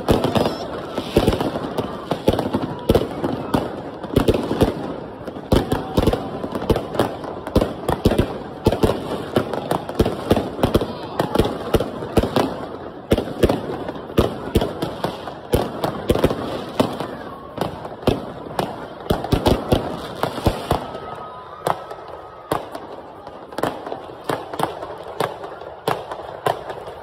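Fireworks going off overhead: a rapid, continuous barrage of sharp bangs and crackles from rockets and aerial shells bursting, a little sparser and quieter over the last few seconds.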